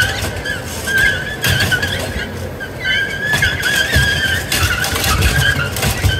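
Small combat robots' electric drive motors whining, the pitch wavering and cutting in and out as they are driven. Several sharp knocks as the robots bump and scrape against each other.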